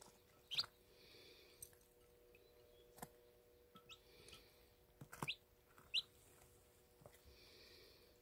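Baby chickens (chicks) peeping: about four short, high, rising peeps, the loudest about half a second and six seconds in.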